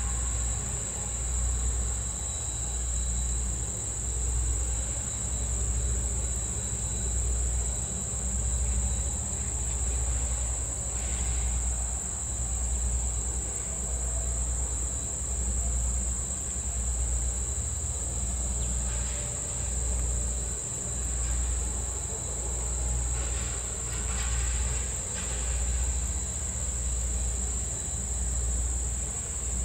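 Insects buzzing steadily at a high pitch over a low throb from the standing steam train that swells and fades about every two seconds.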